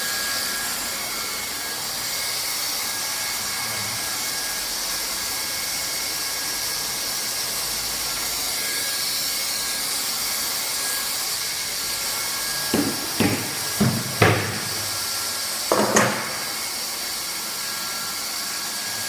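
Handheld hot-air plastic welding gun blowing steadily: a hiss with a thin high whine. About two-thirds of the way through, five or six sharp knocks come in quick succession.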